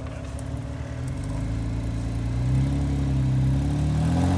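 Jeep Wrangler Rubicon's engine revving up under load as it crawls over the trail, its pitch rising from about a second in and then holding higher and louder.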